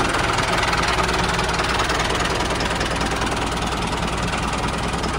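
Mini tractor's engine idling steadily just after starting, with a fast, even firing beat.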